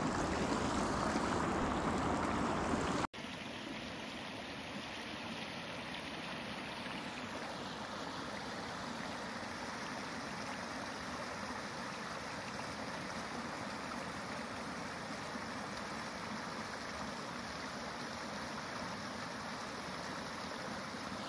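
Water rushing over rocks in a shallow riffle: a steady, even rush. It follows a louder stretch of open-air noise that cuts off sharply about three seconds in.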